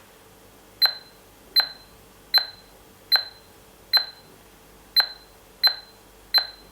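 HA802 smart door lock's touch keypad beeping once per key press: eight short, high beeps about three-quarters of a second apart as a new admin password is keyed in.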